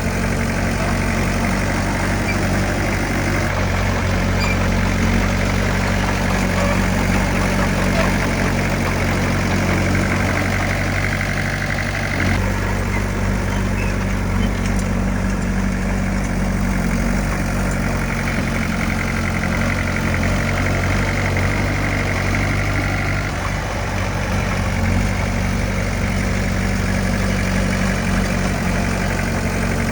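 Heavy diesel engine of earthmoving machinery running steadily, its pitch shifting slightly a couple of times.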